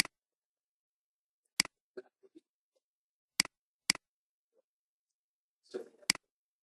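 Computer mouse clicks: a few sharp single clicks a second or two apart, two of them close together near the middle, with faint small ticks between.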